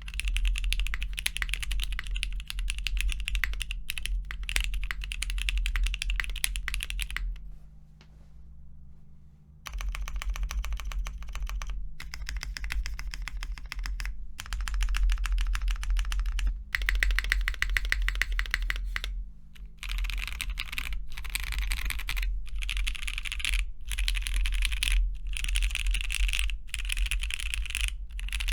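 Continuous fast typing on a Bakeneko polycarbonate-case mechanical keyboard with lubed, filmed and spring-swapped Cherry MX Black linear switches, a carbon fibre plate and GMK doubleshot keycaps. It gives dense clacks with a pause of about two seconds about a quarter of the way in, over a low steady hum.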